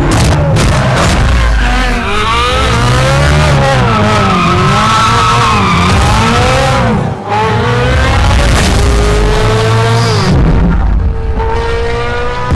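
Ferrari 458's naturally aspirated V8 through a Fi aftermarket exhaust, loud, revving up and down repeatedly, then, after a brief cut about seven seconds in, climbing steadily in pitch under acceleration.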